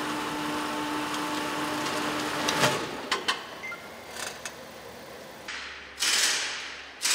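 Roller test bench in a car workshop running with a steady mechanical whir and hum. The hum stops a little under three seconds in, followed by several sharp clicks and then loud bursts of hiss near the end.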